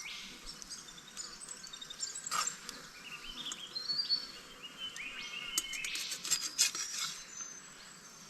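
Birds singing: runs of short clear notes stepping up in pitch, about three seconds in and again from about five to seven seconds, over a steady hiss, with a few sharp clicks.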